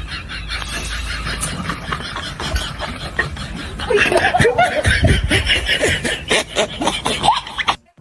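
People laughing and chuckling over general crowd noise. The laughter gets louder about halfway through, and the sound cuts off abruptly just before the end.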